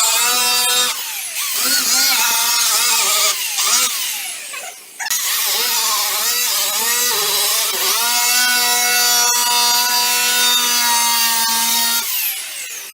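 Handheld power buffer running as its pad works polishing compound over a plexiglass sheet. Its pitch dips and rises with each pass for several seconds, then holds steady before it stops near the end.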